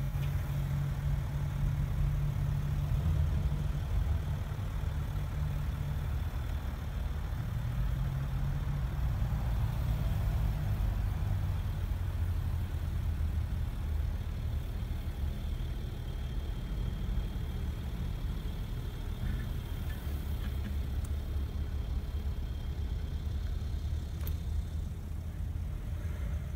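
BMW X5 engine running at low speed as the SUV creeps off a side-slope obstacle and drives away across grass, heard as a low, steady rumble.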